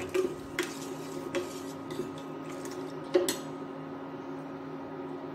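A steel ladle stirs milk and custard in a stainless steel saucepan, scraping and clinking against the pan. A sharp metal clink comes about three seconds in as the ladle is left resting in the pan. An induction cooktop hums steadily underneath.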